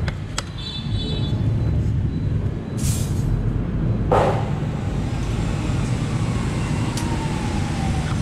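Steady low rumble of passing road traffic, with a short hiss about three seconds in and a sharp knock about a second later, and a faint tone slowly falling in pitch near the end.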